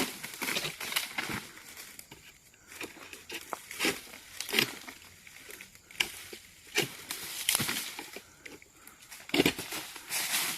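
Dry leaves, twigs and brush rustling and crackling as they are trampled or moved, with irregular louder snaps scattered through; no chainsaw running.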